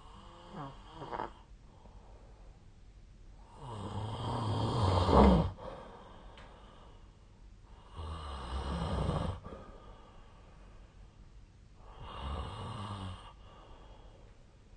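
A sleeping person snoring: three long snores about four seconds apart, the first the loudest, building up to a peak and then stopping abruptly. A shorter, fainter breath sound comes about a second in.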